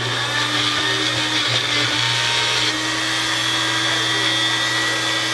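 Magic Bullet personal blender motor running steadily under hand pressure, its blades chopping green pepper, celery and onion in the cup. The sound shifts slightly about halfway through.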